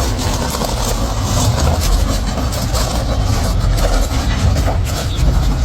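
Strong gusty wind buffeting the microphone: a continuous deep rumble with a rushing hiss over it.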